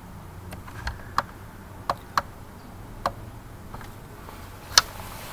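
About six sharp, separate clicks of computer keyboard and mouse use, spaced irregularly about a second apart, the loudest near the end, over a faint low hum.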